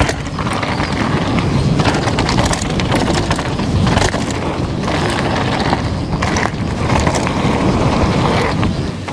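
Downhill mountain bike ridden fast over a rough trail: a steady rolling rattle of tyres and frame, with frequent sharp clicks and knocks, mixed with wind buffeting the action camera's microphone.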